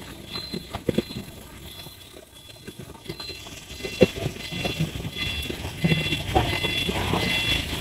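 Street sounds beside a stopped motor scooter: scattered clicks and knocks, with a low engine hum that grows louder in the second half.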